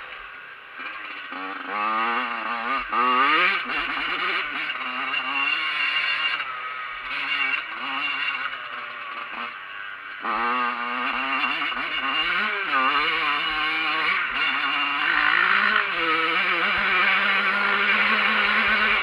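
Dirt bike engine heard from on board while riding, revving in repeated rising sweeps as the bike accelerates, once about two seconds in and again near the middle, then running at a steady higher pitch near the end.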